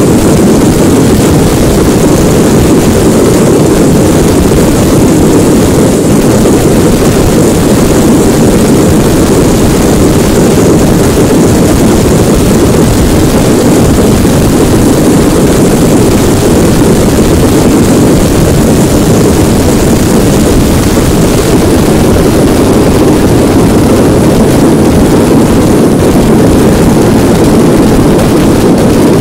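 A giant cylindrical firework fountain spraying sparks, its burn giving a steady, very loud rushing roar with a hiss on top and no separate bangs.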